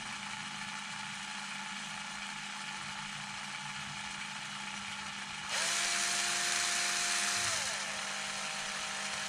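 Cordless drill spinning an X-Maxx cushdrive spur gear assembly on its shaft, held by the bearing, to check the gear for wobble. About halfway through the drill speeds up with a louder, higher whine, then slows about two seconds later and keeps running more quietly.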